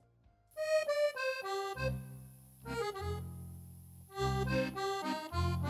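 Roland digital piano accordion (V-Accordion) playing a melody of single notes that starts about half a second in, with bass and chord notes coming in underneath; a short lull just before a second phrase begins near the end.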